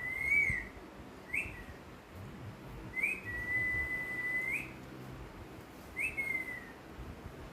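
Pet parrot whistling: four clear whistled notes, each opening with a quick upward flick. The third is held steady for about a second and a half, and the last slides downward.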